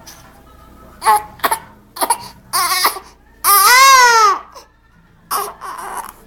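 Newborn baby, three weeks old, crying in a string of short wails, with one longer wail that rises and falls in pitch about halfway through.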